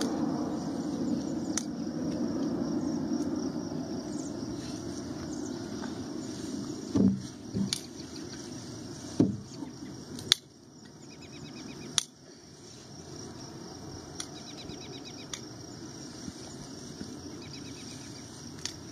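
Hoof nippers trimming a horse's front hoof: about half a dozen sharp single snips spread a few seconds apart, with a couple of dull thumps near the middle. Faint chirping trills run in the background.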